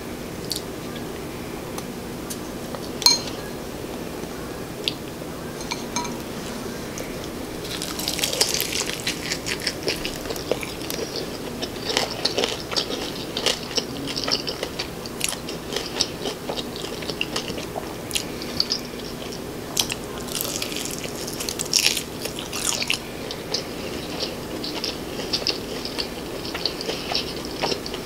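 Close-miked biting and chewing of crispy fried chicken dipped in sauce: dense crackly crunches in repeated bursts from about eight seconds in. Before that, only a few isolated clicks.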